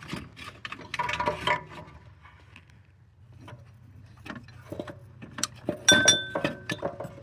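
Irregular metallic knocks, clinks and scraping as a car's AC compressor is worked loose and maneuvered out of the engine bay, with the loudest clank about six seconds in ringing briefly.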